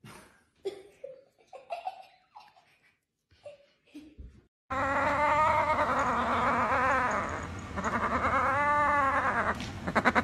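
A few faint knocks, then suddenly about halfway through a cat starts a loud, long, wavering growl-yowl while biting at a treat held in a hand: the sound of a cat guarding its food.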